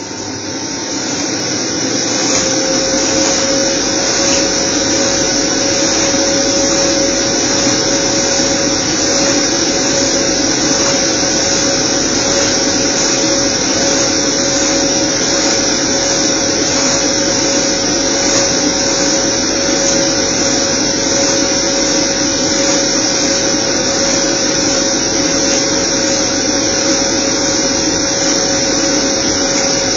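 Centrifugal blower motor spinning up, its whine rising over the first two seconds or so, then running steadily with a constant whine and a rush of air, blowing into a flexible duct hose.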